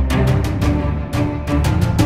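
Background music with frequent drum hits over a deep bass.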